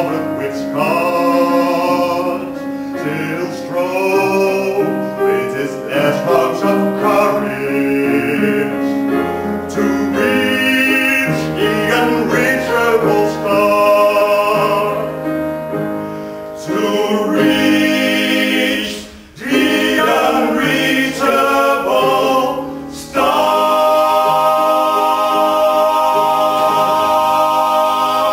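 Men singing on stage: one male voice carries the melody, and the others join for a full chord. The song ends on a long held chord over the last five seconds.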